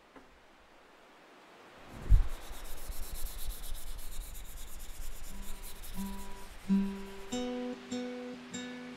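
A thump, then a fiddle bow's hair being rubbed with rosin, a scratchy rasping sound. From about five seconds in, single acoustic guitar notes are plucked one at a time and left to ring.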